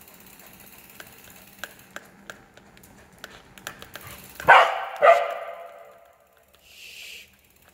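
A corgi gives two sharp barks about half a second apart, each dropping in pitch. Under them a bicycle freewheel ticks faintly as the bike coasts.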